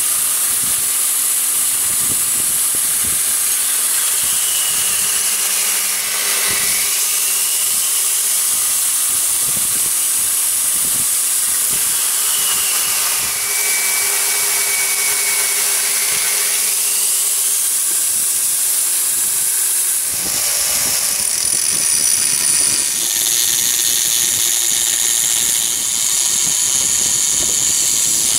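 Homemade belt grinder, run by a converted angle-grinder motor, grinding a steel leaf-spring cleaver blade; its whine dips in pitch twice as the blade is pressed against the belt. About twenty seconds in, it gives way to a handheld angle grinder grinding the blade.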